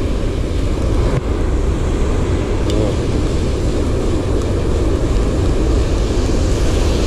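Steady low roar of surf breaking on the beach, loud and even throughout, with a faint knock about a second in.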